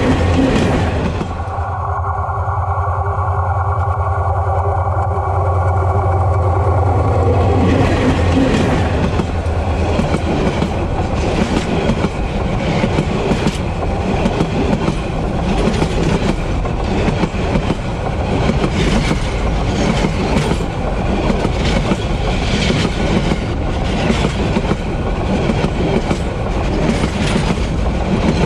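Metre-gauge GT18LA-2 diesel-electric locomotive and its passenger coaches passing directly over the camera between the rails. For the first several seconds there is a deep steady hum from the locomotive; then the coaches roll over with continuous wheel-on-rail rumble and repeated clickety-clack clatter from the wheels.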